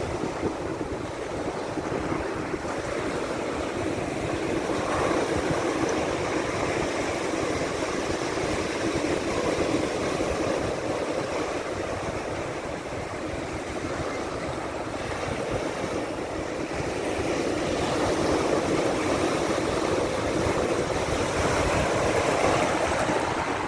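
Black Sea surf: a steady rush of waves washing in, swelling and easing slowly every several seconds.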